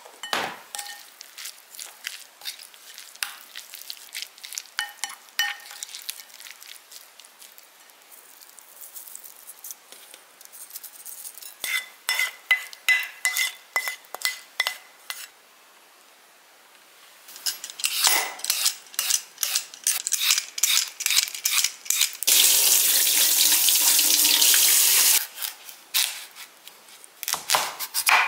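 Kitchen prep sounds: a wooden spoon and dishes clicking and clinking as seasoned mushrooms are mixed and plated. About two-thirds of the way in, a tap runs steadily for about three seconds. Near the end a knife starts slicing a radish on a wooden cutting board.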